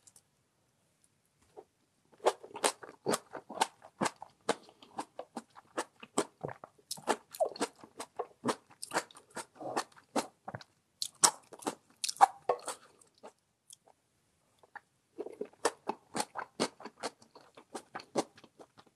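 Close-miked chewing of crunchy radish: rapid, crisp crunches in two long runs, starting about two seconds in, with a pause of a second or so between them.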